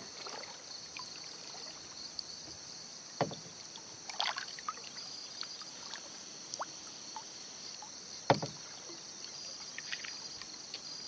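Kayak being paddled on calm water: soft swishes and drips from the paddle blade, with two sharp knocks, a little over three seconds and about eight seconds in. A steady high insect drone runs underneath.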